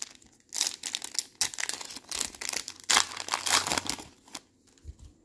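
A Topps Chrome Tennis trading-card pack's foil wrapper being torn open and crinkled by hand: a dense run of crackling that starts about half a second in and stops after about four seconds.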